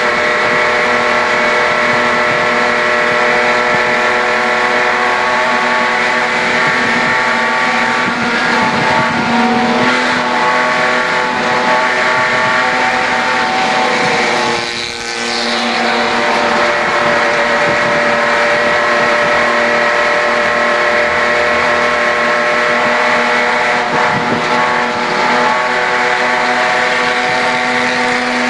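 HQ Holden race car's straight-six engine running at high, steady revs, heard from inside the cabin, with a brief dip in the engine note about halfway through before it picks up again.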